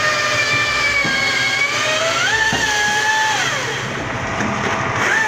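The motor of a hydraulic log splitter running steadily with a whining pitch. About two seconds in the pitch rises as it takes load, holds, then drops back about a second and a half later.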